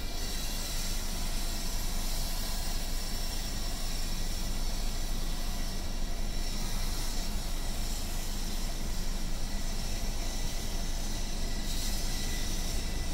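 Steady low rumble and hiss of a car idling and creeping in slow city traffic, heard from inside the car. The hiss swells briefly about six seconds in and again near the end.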